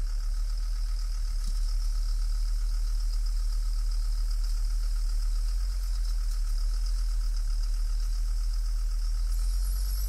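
Motor grader's diesel engine running steadily, a deep low rumble with an even pulsing beat.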